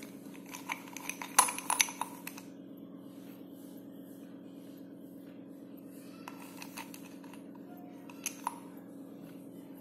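Slate pencils clicking and clinking against each other and against a ceramic cup as they are handled. A cluster of clicks comes in the first couple of seconds, a few fainter ones come past the middle, and two sharp clicks come near the end, over a steady low hum.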